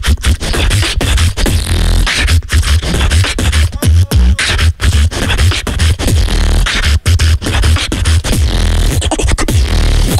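Live beatboxing into a handheld microphone, amplified through a Peavey speaker: a fast, dense rhythm of sharp clicks and hits over heavy deep bass.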